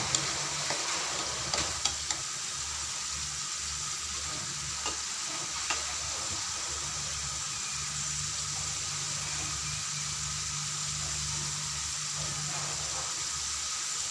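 Hot cooking oil sizzling steadily in a wok of frying sweet potato sticks as sugar melts in it for caramelizing. A few light clicks of a spatula against the wok come in the first couple of seconds and again around five seconds in.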